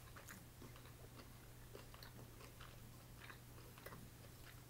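Faint chewing: soft, scattered mouth clicks of someone chewing food, over a low steady hum.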